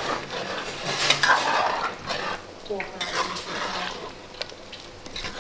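Metal ladle stirring in an aluminium pot of thick soup, scraping and clinking against the pot's sides in scattered knocks, with a hiss strongest about a second in.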